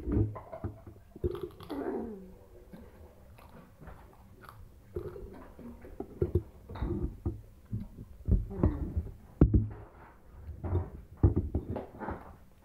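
Eating and food-handling sounds at a table: chewing, with irregular small clicks, knocks and low thumps from fingers working the food on the plate and the plastic bag.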